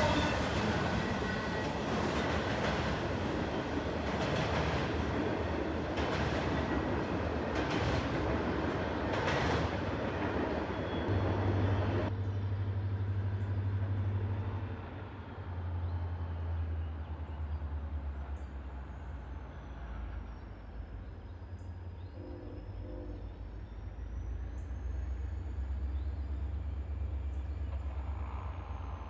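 Empty double-stack well cars rolling past close by, their wheels clacking over rail joints about every two seconds, until the sound changes abruptly about 12 seconds in. After that comes a steady low rumble from a distant EMD SD40-2 diesel locomotive approaching.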